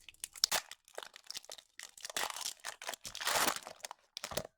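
A foil Pokémon booster pack wrapper crinkling as it is torn open, in irregular crackles with one longer, louder rip about three seconds in.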